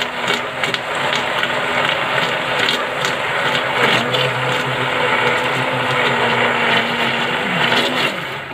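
Electric hand blender running steadily with its blade submerged, blending liquid cake batter of milk, oil and sugar: a steady motor hum under a whirring wash of churned liquid.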